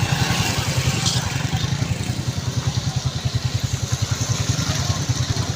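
An engine idling steadily with a fast, even low throb, over a steady hiss.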